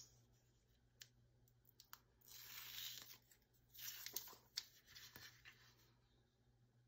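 Faint rustling and rubbing as hands fold a faux-leather strap and press it down onto double-sided tape, with a few light ticks. Two soft bursts stand out, about two to three seconds in and again around four seconds.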